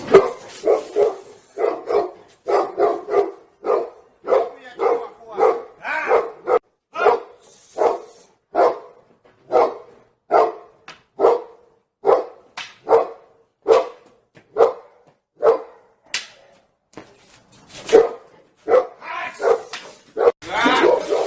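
A dog barking over and over as a watchdog, the barking standing in for an alarm. It gives short barks in quick runs at first, then single barks about once a second, with a short pause about three quarters of the way through before quick runs start again near the end.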